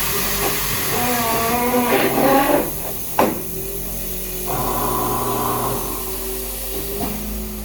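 Tire-changing machine at work on a tire, with a hiss throughout. A wavering squeal comes in the first couple of seconds, then a single sharp clack, then a steady whine.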